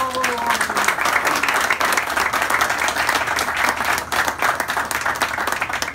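Audience applauding: many hands clapping together at a steady level, thinning out to a few scattered claps near the end.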